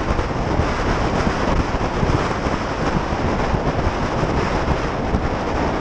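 Wind buffeting the microphone of a helmet-mounted camera on a moving motorcycle at road speed, a steady dense rushing noise with no clear engine note.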